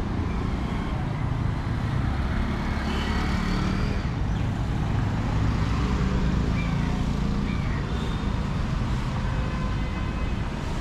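Street traffic: scooters and cars passing on a wet road, a continuous engine rumble.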